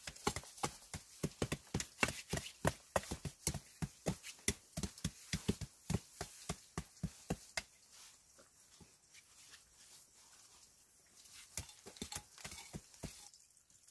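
Rapid knocks of a hand-held stone and a small handled tool tapping and packing soil around paving stones being set into a dirt floor, several knocks a second. They thin out about halfway through, then pick up briefly near the end.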